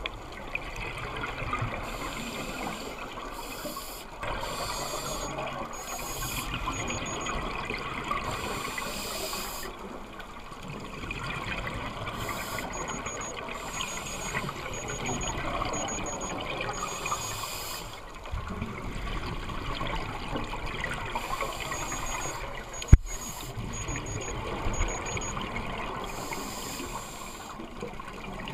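Scuba regulator exhaust bubbles heard underwater, rushing in long swells that fade and return every few seconds with the divers' breaths. Short runs of faint high-pitched beeps come three times, and there is one sharp click a few seconds before the end.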